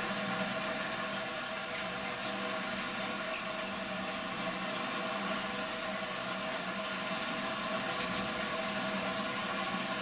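Shower water running steadily, with a faint steady hum over the spray.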